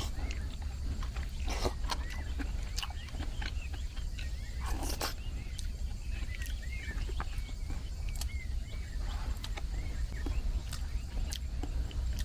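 A small animal outside gives many short, repeated chirping calls. Scattered clicks and a few louder rustles come from someone eating a rehydrated rice meal out of its pouch, over a steady low rumble.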